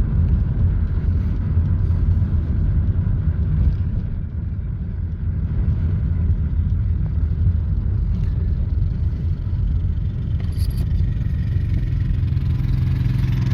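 Low rumble of a vehicle moving slowly, settling into a steadier engine hum near the end.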